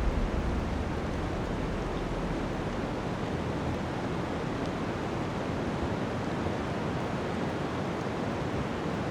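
Steady blizzard wind: an even, unbroken hiss of wind-driven snow.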